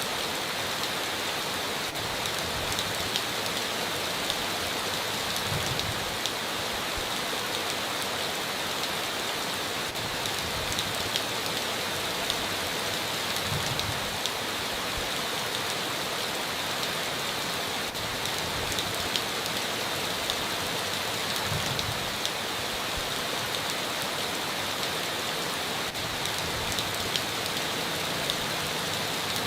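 Heavy rain falling steadily on a tin roof, with individual drops ticking through the constant patter.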